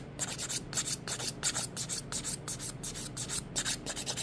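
A 180-grit hand nail file rasping back and forth over an acrylic nail, in quick even strokes about three a second.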